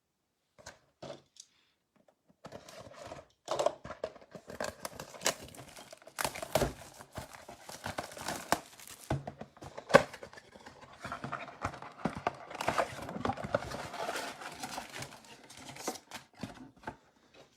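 Plastic wrapping crinkling and tearing as a trading-card mega box is unwrapped and opened by hand, with a few light clicks just before it starts.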